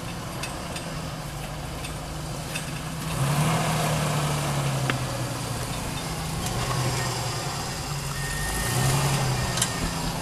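Lifted 4x4's engine running at low revs as it crawls over boulders, revving up about three seconds in and again near the end, with a few sharp clicks.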